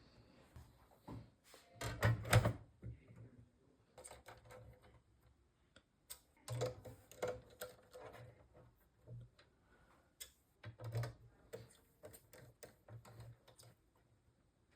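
Faint, irregular clusters of small clicks and taps, coming in about five short bursts with pauses between.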